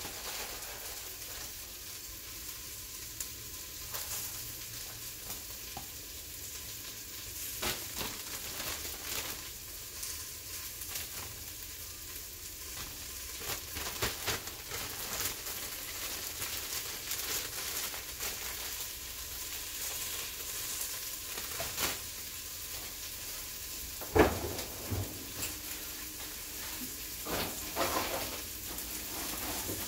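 Hot broth in an open Instant Pot simmering with a steady hissing sizzle and scattered crackles. A few louder knocks come near the end.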